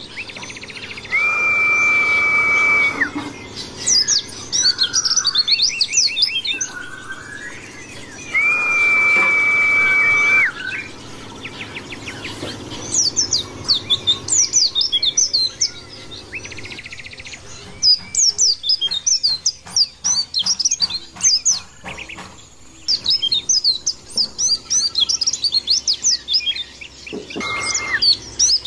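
White-eye (pleci) singing a fast, high twittering song of quick chirping phrases. Twice a long, level whistle is held for about two seconds, and a shorter one comes near the end. A quick rattle of clicks comes in the middle.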